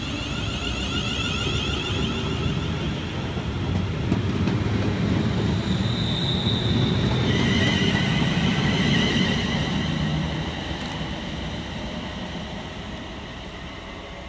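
Class 350 Desiro electric multiple unit pulling out of the station: wheels rumbling on the rails and a high, even traction-motor whine, swelling to its loudest about two thirds of the way through and then fading as the train draws away.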